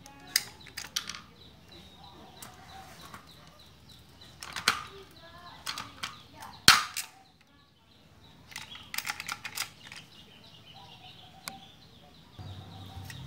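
Hand pop-rivet gun being squeezed, giving a series of sharp clicks and snaps as the rivet stems break off; the loudest snap comes about six and a half seconds in, and a quick run of clicks follows about nine seconds in.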